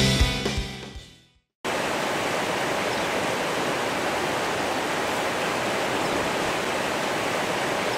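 Drum-kit music fading out, then after a brief gap a steady rushing of river water.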